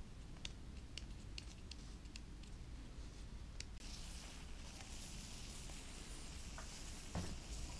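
Aerosol can of expanding foam dispensing through its straw nozzle: a soft steady hiss that starts about halfway through, after a few faint clicks.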